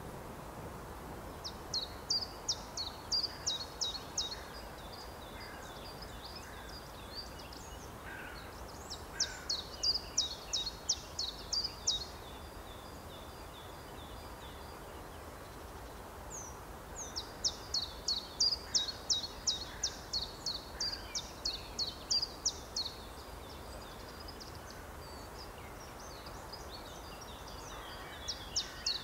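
A songbird singing in repeated phrases, each a rapid run of sharp, high notes lasting a few seconds, over steady outdoor background noise. Three full phrases are heard, and a fourth begins near the end.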